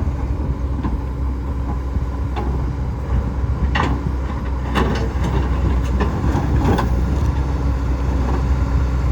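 Kobelco SK210LC-9 excavator's Hino diesel engine running steadily while the machine digs, with a handful of sharp knocks and scrapes, likely the bucket and thumb working dirt, rock and concrete, clustered between about four and seven seconds in.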